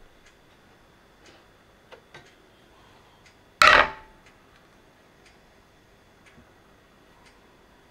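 A clock ticking faintly about once a second. About three and a half seconds in, a glass mixing bowl is set down on a digital kitchen scale with one loud knock and a brief ring of glass.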